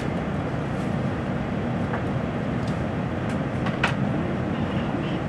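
Steady low hum and rumble inside a stationary N700A Shinkansen car, with a sharp click about four seconds in.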